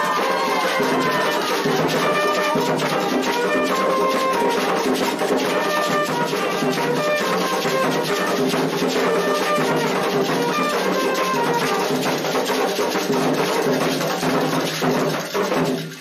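Candomblé ceremonial music: a bugle playing held, ringing notes over drums and hand-clapping. The music breaks off just before the end.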